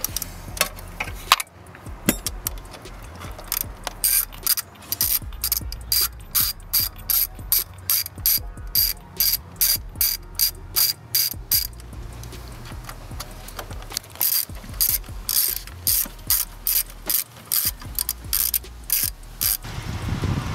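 Socket ratchet clicking in runs of quick repeated strokes, about two a second, with a pause in the middle, as an E8 Torx socket turns out the bolts holding the high pressure fuel pump to the engine.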